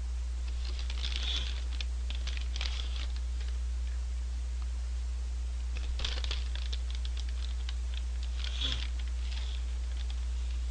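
Paper French-fry bag crinkling and rustling in bursts as it is handled and tipped up to the mouth, in three clusters, about a second in, around six seconds in and near nine seconds, over a steady low hum.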